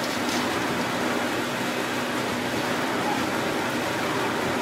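Steady factory background noise: an even mechanical hum and hiss with a faint low drone, no distinct strokes or impacts.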